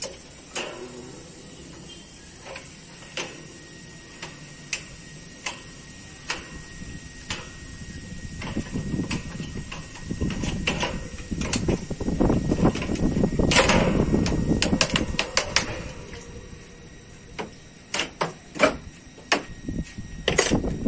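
Sharp metal clicks and taps of pliers working a wire fan guard on a plastic drum, about one a second. From about eight seconds in comes a longer stretch of louder rustling handling noise, and a few louder clicks follow near the end.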